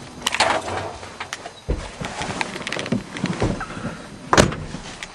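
Scattered clunks, knocks and rustling from someone moving about in and around a pickup truck's cab, with one loud bang about four and a half seconds in.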